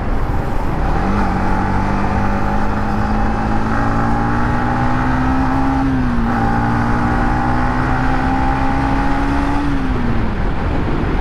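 Yamaha MT-15's 155 cc single-cylinder engine on its stock exhaust, pulling steadily in third gear. The engine note climbs slowly, dips briefly about six seconds in, climbs again and falls away near the end as the throttle is closed, with steady wind noise under it.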